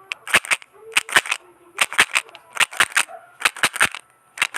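A rapid series of sharp cracks or snaps in quick clusters of two to four, about one cluster a second.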